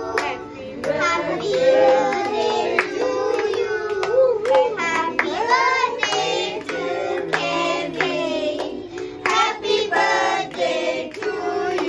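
A group of children and adults singing together, with hand clapping.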